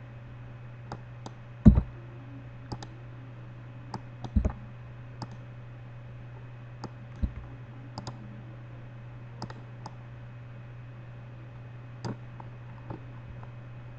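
Computer mouse clicking at irregular intervals, some clicks in quick pairs, with a few duller thumps, over a steady low hum.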